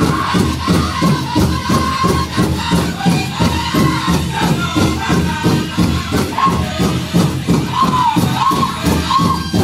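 Live music: a steady shaken or struck percussion beat, about three beats a second, under voices singing arching held notes.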